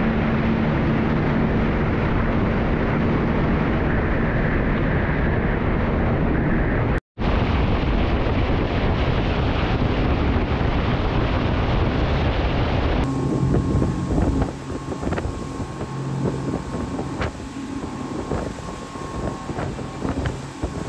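Motorboat engine running under way, with wind buffeting the microphone. The sound drops out for an instant about seven seconds in. About thirteen seconds in it gives way to a somewhat quieter, steadier engine hum.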